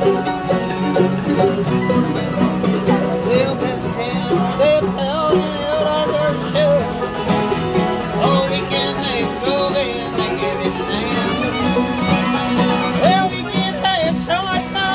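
Acoustic bluegrass jam: fiddle, acoustic guitars and mandolin playing a tune together over a steady strummed rhythm.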